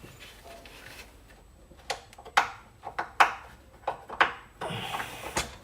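Hand tools and metal parts clicking and knocking as a mechanic works in a car's engine bay: quiet for the first couple of seconds, then about eight sharp knocks over three seconds, with a short scrape near the end.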